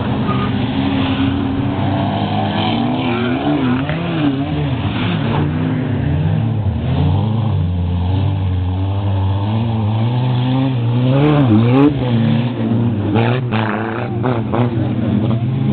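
Several old cars' engines running hard on a dirt race track, more than one heard at once, each rising and falling in pitch as it is revved and shifted. One engine revs up sharply just before twelve seconds in, and a few sharp clicks follow.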